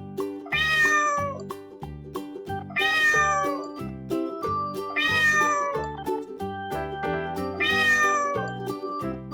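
A domestic cat meowing four times, about two seconds apart, each meow about a second long and falling in pitch at the end, over light background music.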